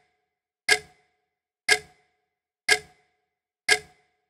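Ticking clock sound effect: one sharp tick a second, each with a brief ring.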